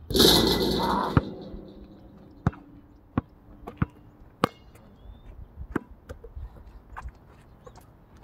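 A basketball hits the metal hoop with a loud clatter that rings on and fades over about a second. The ball then bounces on the asphalt court and is dribbled, in single sharp bounces spaced about half a second to a second apart.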